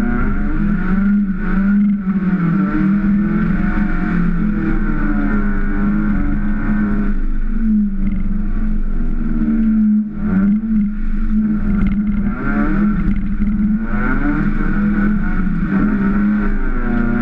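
Kia ProCeed rally car's engine, heard from inside the cabin, revving up and falling back again and again as it is driven hard through the stage. There is a brief drop in level about ten seconds in.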